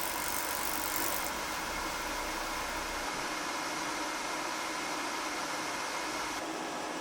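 Laser engraving machine running during laser stippling: a steady hiss with a faint hum in it. The high part of the hiss drops away about a second in.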